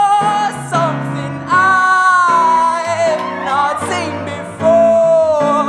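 Live band music: a male singer holds three long wordless sung notes, sliding between pitches, over sustained keyboard chords.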